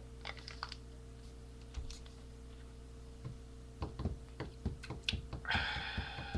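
Light clicking and tapping, a few clicks at first, then quick, irregular taps from about four seconds in. A sustained high pitched tone sets in near the end.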